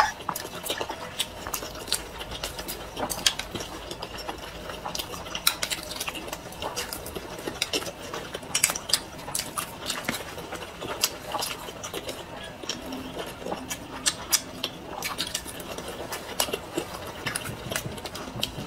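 Two people eating boiled dumplings: close-up chewing, with scattered light clicks and taps of chopsticks against a metal tray.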